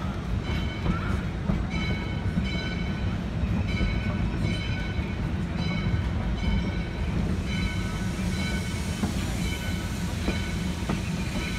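Open passenger car of a 3-foot narrow-gauge logging railroad rolling along the track: a steady low rumble, with short high-pitched squeals recurring about once a second.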